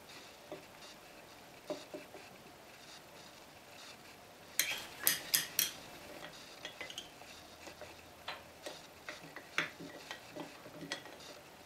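Light clicks and clatter of small hard objects being handled, with a quick run of four or five sharper clicks about halfway through and scattered softer ticks after.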